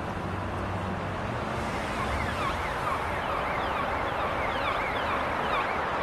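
Steady hum of road traffic. From about two seconds in, a rapidly repeating up-and-down warbling tone sounds over it.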